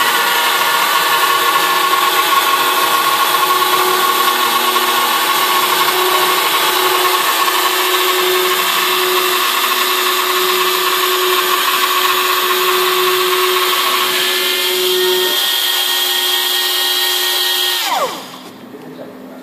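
Small CNC router's rotary-tool spindle running at high speed and cutting a white sheet: a steady, loud whine. Near the end the whine falls in pitch and dies away as the spindle stops.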